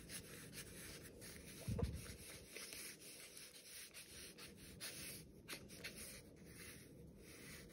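Felt-tip marker scratching lightly over watercolour-painted paper in short, irregular strokes as feather lines are drawn. A soft low thump about two seconds in.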